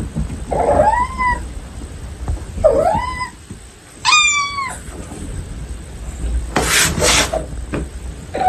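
Domestic cat meowing three times for attention, each call rising then falling in pitch, the third higher and brighter. A short burst of scratchy noise follows a couple of seconds later.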